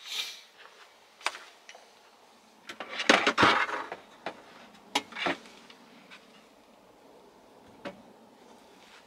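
Solid wood worktop boards being handled: several sharp knocks of wood on wood, and a louder scraping shuffle about three seconds in.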